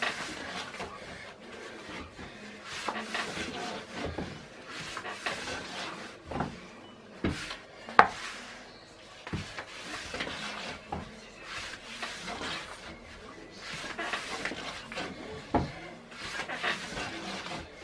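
Long thin wooden rolling pin (oklava) rolling out a sheet of börek dough on a wooden board: steady rubbing and scraping of wood, broken by occasional sharp knocks of wood on wood.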